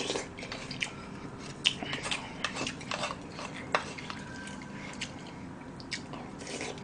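A spoon tapping and scraping against a small bowl of rice-crust soup as it is scooped up and eaten, in scattered, irregular clicks.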